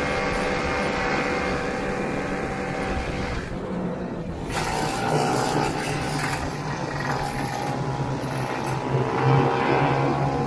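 1969 Ski-Doo Olympique's 320cc single-cylinder two-stroke engine running steadily while the snowmobile travels across the lake. The sound dips briefly about four seconds in, then picks up again.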